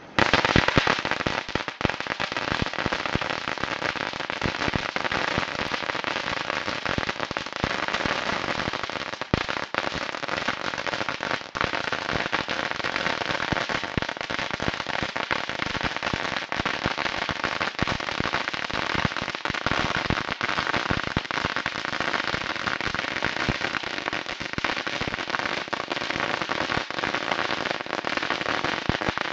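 A long string of firecrackers going off, a dense unbroken crackle of rapid pops that starts suddenly and keeps going without pause.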